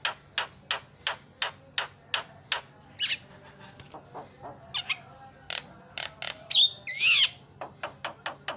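Javan myna (jalak kebo) calling: a fast run of sharp chip notes, about four a second, broken by a short whistled note. About seven seconds in comes a loud, harsh, wavering call, and then the quick chips start again.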